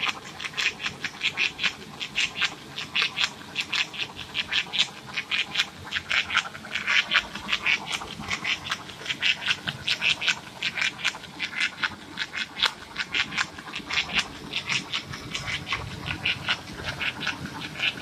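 Scotch tape printing machine running, its mechanism making a rapid, uneven clacking of several sharp strokes a second as the printed tape feeds over the rollers.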